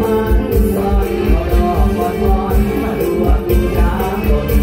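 Live mor lam band music played loud over the stage PA, with a steady kick-drum beat about two to the second under sustained melody.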